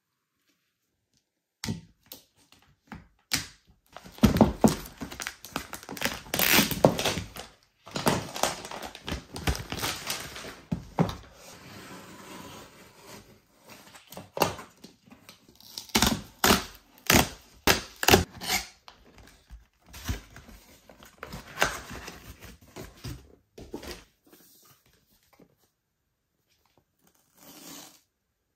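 A corrugated cardboard shipping box being handled and opened by hand: knocks and thunks against the box and the floor, with long spells of tearing and crinkling as the tape and flaps are pulled. Near the end it turns to brief peeling of a tab on the retail box.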